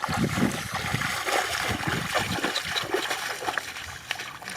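Water splashing and trickling: a quick, irregular patter of small splashes that fades near the end.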